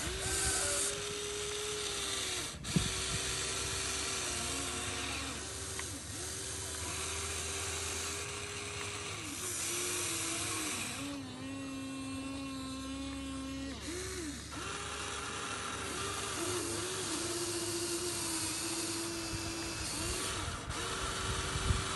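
Toy RC excavator's small geared electric motors whining as the boom, arm and bucket move and the tracks slew. The pitch jumps and swoops each time a motor starts, stops or takes load, and there is a single sharp click a few seconds in.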